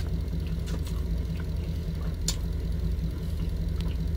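Truck engine idling steadily as a low hum inside the cab, with a few faint clicks of chewing.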